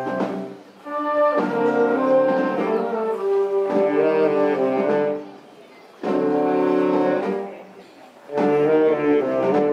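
Marching wind band of clarinets, saxophones, trombones and brass basses playing in long held chords, the phrases broken by short pauses about a second in, near five seconds and near eight seconds.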